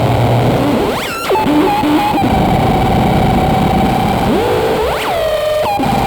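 Electronic noise music: a dense, loud noise texture under a steady held tone, broken by sliding pitch sweeps, one rising about a second in and one rising and falling near five seconds, with sudden cuts.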